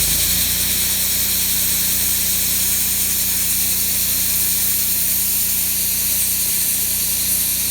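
Plasma cutter cutting: a steady, loud hiss of the arc and air jet, with the Miller Trailblazer 325 welder-generator's engine running underneath, revving up under the cutter's load.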